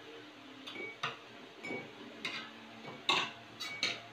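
Metal spoons clinking and scraping on ceramic plates while people eat: a string of light, irregular clicks, the loudest pair a little past three seconds in.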